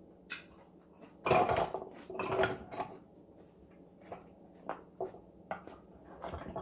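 Dishes and utensils clattering while eating. There are two louder spells of clatter, about a second and two seconds in, then lighter scattered clicks.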